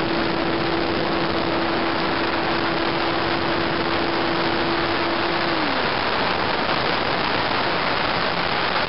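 Steady static hiss of an analog FPV video-link audio channel, with a steady low tone from the plane's electric motor. The tone glides down and fades out about five and a half seconds in as the motor cuts out in flight.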